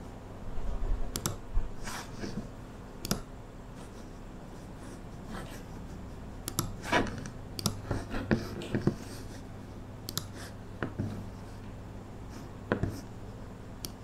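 Someone working at a computer: irregular clicks and light taps from the mouse and desk, coming in small clusters with pauses between. A steady low hum sits under them.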